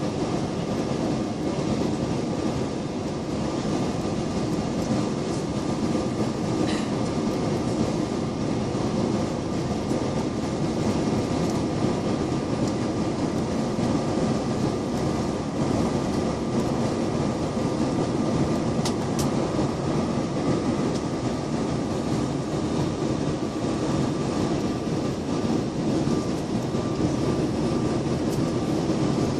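Steady airliner cabin noise: a constant engine and airflow drone with a faint steady whine, unchanging throughout.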